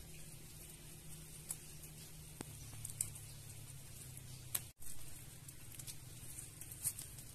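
Fresh garden vegetables being harvested by hand: a few sharp snaps, about a second or more apart, over soft rustling and a low steady hum.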